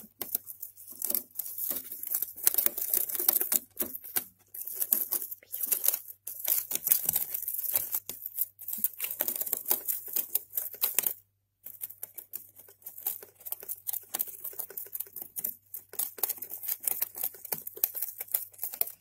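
Gerbils gnawing and tearing at cardboard: a dense run of rapid, dry, crackling clicks, broken by a moment of silence about halfway through.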